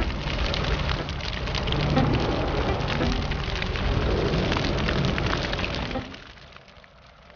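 Crackling, sizzling fire sound effect, a dense spray of fine crackles, which fades out about six seconds in.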